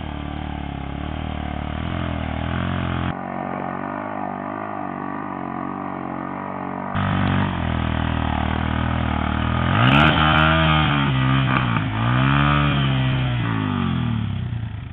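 Sport quad ATV engine running under hard throttle in mud, its pitch swinging up and down as it is revved, with two big rising-and-falling revs in the second half.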